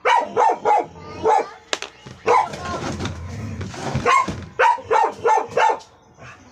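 A dog barking repeatedly: about a dozen short barks in quick runs, with a low rumble under a lull about two to four seconds in.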